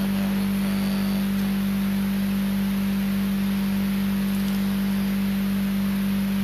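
Loud, steady electrical hum at one fixed pitch with fainter steady tones above and below it, unchanging throughout, typical of mains hum in the microphone and sound-system chain.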